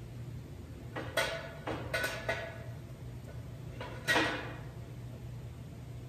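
Steel parts clanking together: a few light metallic knocks, then one louder clank about four seconds in that rings briefly, over a low steady hum.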